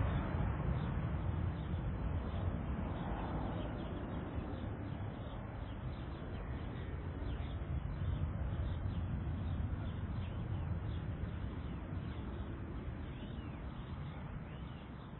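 An airplane's rumble slowly fading away as it recedes after passing overhead, with small birds chirping faintly in the background.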